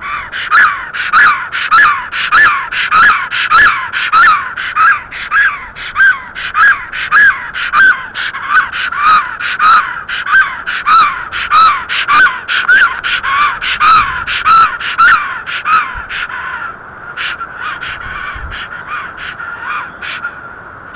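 Black stork calling loudly: a long, steady series of repeated calls about one and a half a second, which turns softer and uneven a few seconds before the end.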